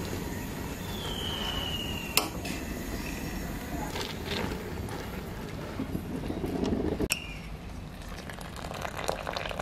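A wire spider strainer scooping half-cooked rice out of its cooking water and tipping it into an aluminium pot, knocking sharply against the metal twice, about two seconds in and again about seven seconds in, over a steady background noise.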